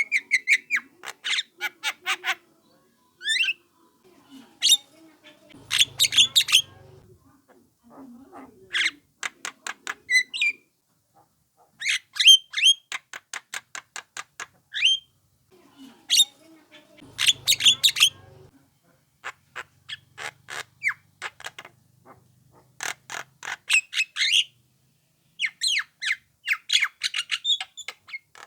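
Young Javan myna calling: bursts of fast, harsh clicking notes and squawks, each burst a second or two long, with short pauses between them. This is the kind of call used as a lure to draw a response from other Javan mynas.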